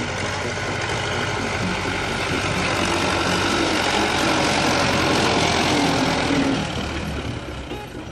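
MTZ-80 tractor's four-cylinder diesel engine running as the tractor drives up close. It grows louder to a peak about two-thirds of the way through, then falls away near the end.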